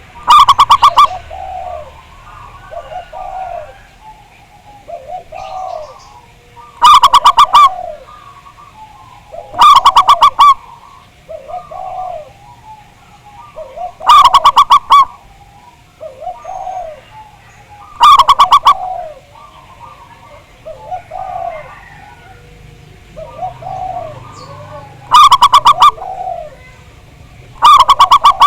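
Zebra doves (perkutut) cooing. A loud, rapid staccato coo comes every few seconds, seven times in all, over softer overlapping coos from several other doves.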